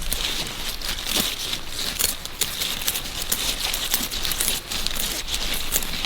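Continuous rustling and crinkling of plant material, dense with small crackles and snaps.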